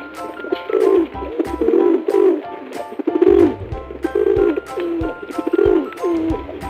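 Pigeon cooing, a series of low, wavering coos repeated about every second, over light background music.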